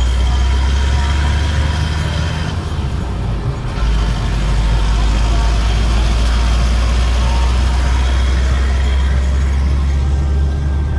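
Low, steady rumble of a car's road and engine noise heard from inside the cabin while driving.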